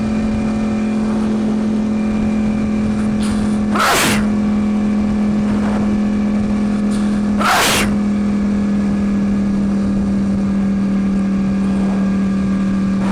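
Motorcycle engine running at a steady cruising speed with a constant drone, and the rider sneezing hard twice inside his full-face helmet, about four seconds in and again about three and a half seconds later.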